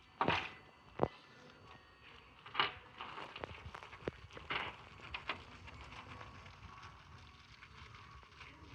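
Scattered knocks and clicks of bed-frame parts and fittings being handled and fitted together, a handful of sharper knocks in the first five seconds, then quieter handling.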